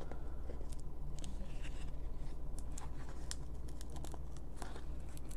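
Packaging being handled and tugged at while trying to pull a gold kunai out of its box: scattered small clicks and a few brief scrapes, over a steady low hum.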